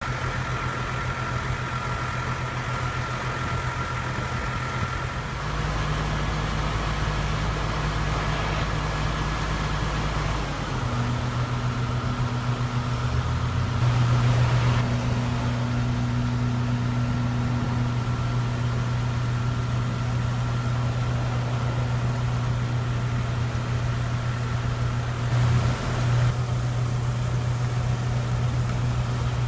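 A vehicle engine running steadily, its note shifting abruptly a few times: about five seconds in, again near eleven seconds, and once more near the end.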